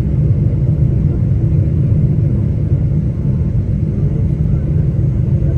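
Airplane's steady low rumble during landing.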